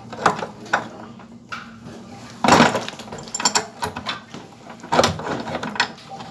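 Clicks, clanks and scrapes of metal hand-tool work on a water heater's heating element, with louder scrapes about two and a half seconds in and again near five seconds.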